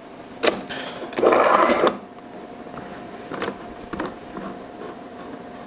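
Bar clamps being set and tightened on a glued-up board panel: a sharp knock, then a short scraping rattle about a second in as a clamp is worked along its bar, then a few light clicks.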